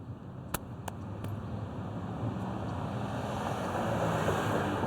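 A car engine and tyre noise grow steadily louder as the vehicle draws closer, over a few sharp clicks in the first second or so.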